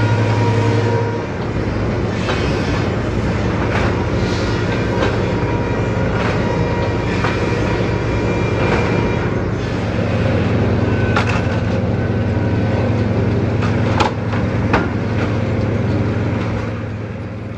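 Sawmill trimmer saws and chain conveyors running with a steady low machine hum. Hardwood boards clatter and knock irregularly on the chains and rollers, with the sharpest knocks near the end.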